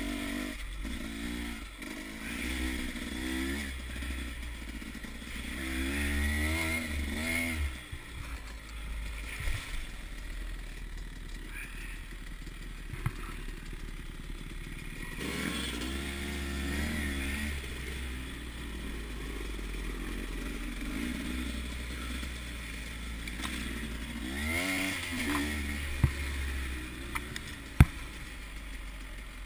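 Husqvarna dirt bike engine running on a dirt trail, its pitch rising and falling again and again as the throttle is worked. A few sharp knocks come through, one about halfway and two near the end.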